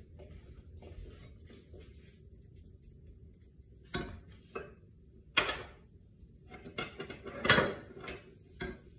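Kitchen utensils and containers handled at a stovetop: a handful of sharp clacks and knocks from about four seconds in, the loudest near the end.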